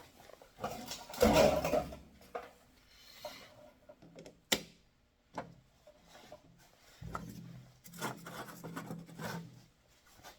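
Handling noises as parts and tools are moved about: rubbing and clattering, with a louder scrape about a second in and a sharp click at about four and a half seconds.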